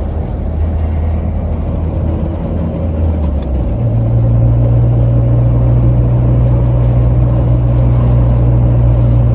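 Truck engine and road noise heard from inside the cab while driving on a snowy, icy road. A little under four seconds in, the engine hum steps up in pitch and gets a bit louder.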